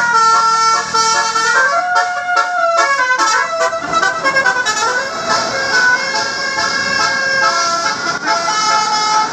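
Basuri 'telolet' multi-tone bus horn playing a quick melody of bright notes that step up and down in pitch. From about four seconds in, louder engine and road noise runs underneath.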